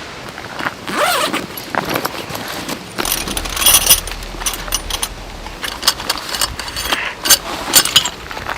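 Irregular clicks, rattles and scrapes of gear being handled, with a short zipper-like rasp about a second in.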